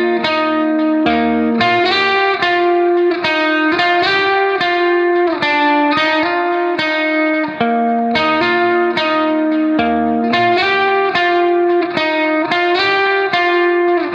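Background music: a melody of quick plucked-string notes, several a second, each note ringing briefly and fading.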